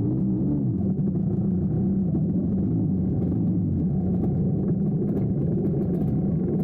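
Yamaha Blaster ATV's single-cylinder two-stroke engine running under riding load. Its pitch wavers up and down near the start and end and is steadier in between.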